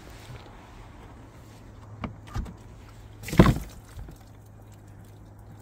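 Black plastic pond filter box lid being handled and lifted open: two light knocks about two seconds in, then a louder brief knock-and-scrape of plastic about three and a half seconds in.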